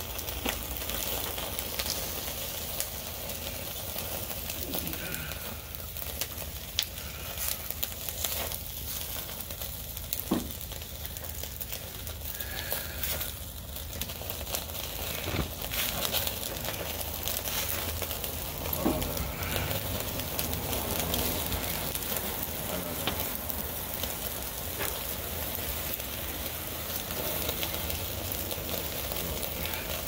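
Food sizzling over a charcoal fire, with scattered sharp pops and crackles.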